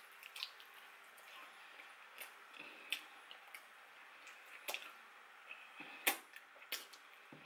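Close-up eating sounds of sweet and sour chicken wings eaten by hand: scattered wet mouth smacks, sucking and small clicks as meat is gnawed off the bones, the loudest about six seconds in.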